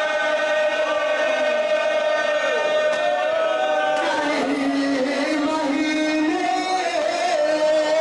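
A marsiya (Shia lament poetry) sung without instruments. A lead male voice holds long notes into a microphone while a group of men chant along with him.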